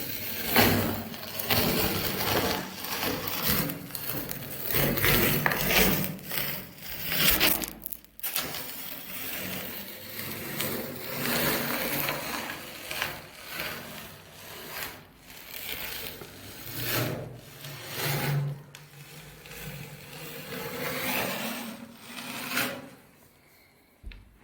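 Toy bulldozer crushing and scraping chocolate biscuits: gritty crunching and scraping in uneven surges that dies away near the end.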